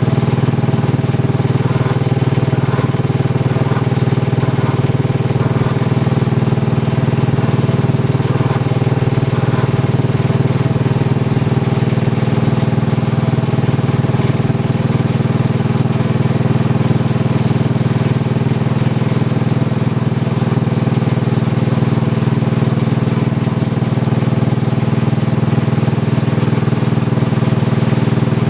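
Riding lawn tractor's 18-horsepower twin-cylinder engine running steadily at a constant speed.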